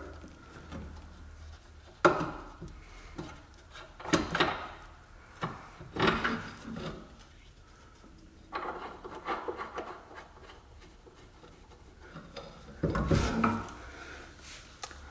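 Hand tools and metal suspension parts being worked on a car's front suspension during teardown. Several separate knocks a couple of seconds apart, with stretches of scraping and rubbing in between.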